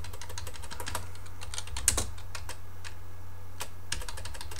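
Typing on a computer keyboard: quick runs of key clicks that thin out to a few strokes about halfway through, then pick up again near the end, over a steady low hum.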